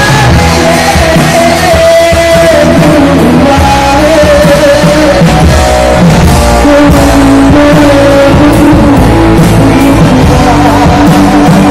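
Live rock band playing loud through a hall PA system: electric guitars, bass and drum kit under a sung melody with long held notes.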